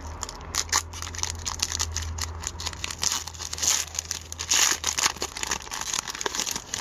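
Foil trading-card pack wrapper being torn open and crinkled in the hands, a continuous crackling rustle with two louder crinkles a little past the middle.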